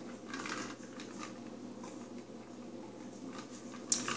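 Faint sipping from a cup of ice water about half a second in, then quiet, and a single light click near the end.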